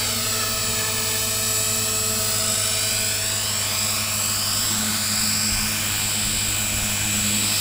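KDS 450 Pro flybarless electric RC helicopter hovering low. The motor gives a steady high whine over the main rotor's steady low buzz, and the whine bends up and down in pitch as the helicopter drifts about.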